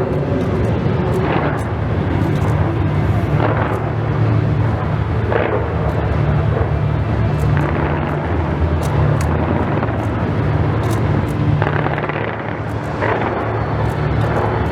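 Large fireworks display: a continuous rumble of shells bursting, with frequent sharp crackles and pops and a few louder bangs standing out, the strongest about five seconds in and after eleven seconds.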